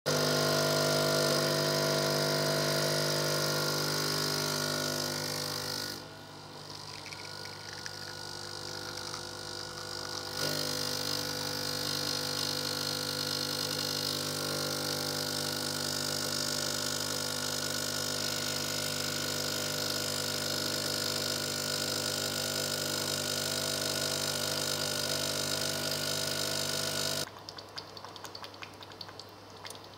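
Gaggia Evolution espresso machine's vibratory pump humming steadily while pulling a double shot of espresso. The hum drops quieter for a few seconds about six seconds in, then runs again and cuts off abruptly near the end.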